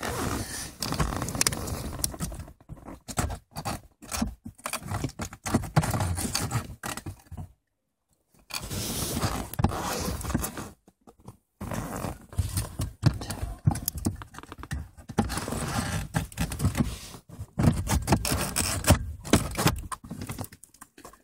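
Irregular scraping and rubbing as a car heater core is handled and pushed back into its plastic heater housing under the dashboard, in spurts with a few short pauses.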